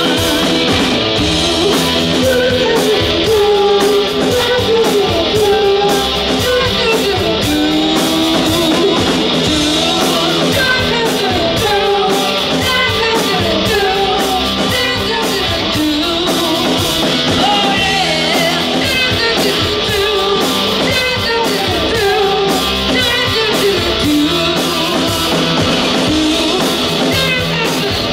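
Live rock band playing: electric guitar, drums and a woman singing, loud and continuous.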